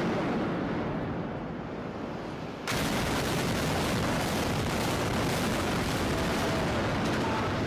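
Building implosion of a 30-story skyscraper. A low rumble fades, then about two and a half seconds in the explosive charges cut in suddenly and run straight into the continuous rumble of the tower collapsing.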